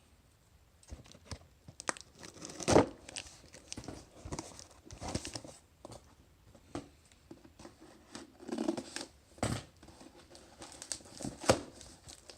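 A package being torn open by hand: irregular rips and crinkling of packaging, with a few sharp louder tears and knocks.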